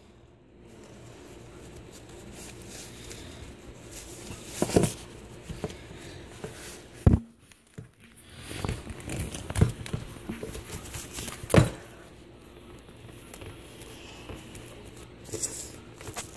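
Handling noise: fabric rustling and the phone rubbing and bumping close to the microphone as a Baby Alive doll is pulled into a cloth shirt, with a few sharp knocks scattered through.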